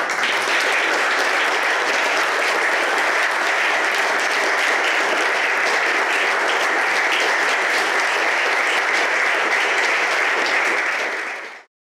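Audience applauding: dense, steady clapping from a seated crowd that starts at once, then fades out and cuts off shortly before the end.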